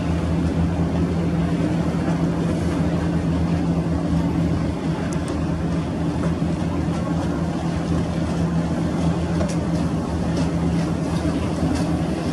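A boat engine drones steadily with a constant low hum, over a wash of water and wind noise.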